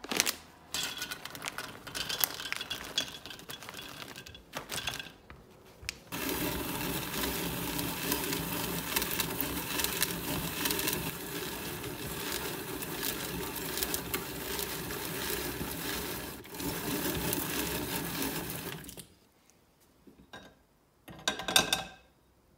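Hand-cranked Alexanderwerk rotary drum grater grating almonds. After a few seconds of scattered clattering, the drum rasps steadily for about thirteen seconds and then stops. There is one short burst near the end.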